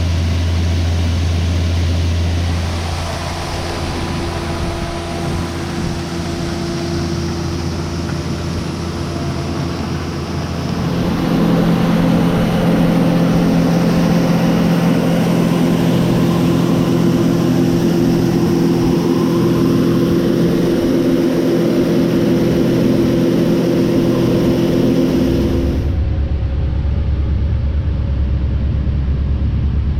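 Heavy farm machinery engines running steadily, heard in several clips that change abruptly about 3, 11 and 26 seconds in; the longest stretch in the middle is a steady engine hum with a clear pitch.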